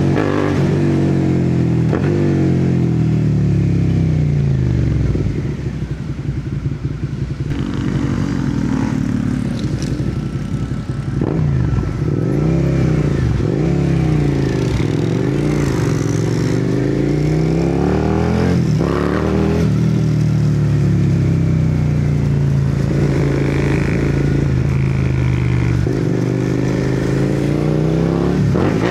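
Suzuki SV650 V-twin running through an aftermarket exhaust while being ridden. The engine note rises and falls with throttle and gear changes, and eases off for several seconds about five seconds in before picking back up.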